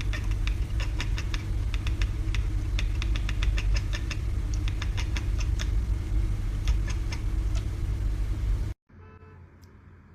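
Domestic cat chattering while staring out of a window: bursts of rapid, sharp jaw clicks over a steady low rumble. The sound cuts off suddenly near the end.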